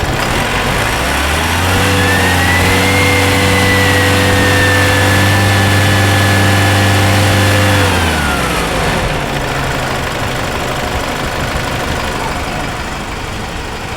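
Isuzu MU-X turbodiesel engine revved up from idle about a second and a half in, held at raised revs with a high turbo whine, then let fall back to idle around eight seconds in. The loud turbo noise is the fault being traced, its cause not yet found.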